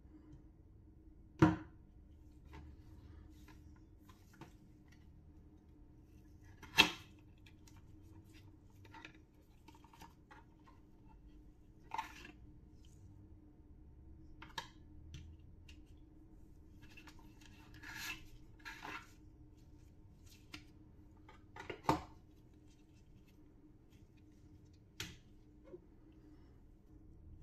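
Unboxing handling noises: a smartwatch, its charging cable and cardboard packaging picked up and set down on a wooden desk. Scattered clicks and taps, with three sharp knocks much louder than the rest and a few short rustles of card and paper, over a faint steady hum.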